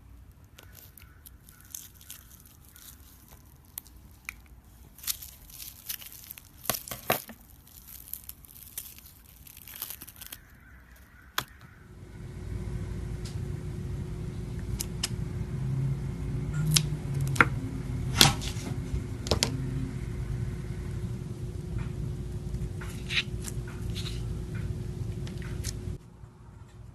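Crackling and crinkling clicks from a slime stress ball being handled. About twelve seconds in, a steady low hum starts under the clicks and stops just before the end.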